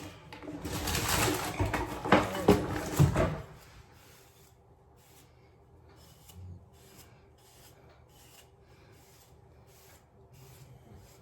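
A hairbrush being worked through a wig. It starts with a few seconds of loud rubbing and handling close to the microphone, with some brief pitched sounds, then settles into soft, even brush strokes about two a second.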